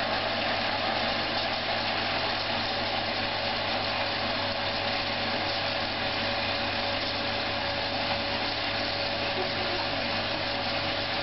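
A motor running steadily, an even rushing hiss over a constant low hum and a thin steady tone.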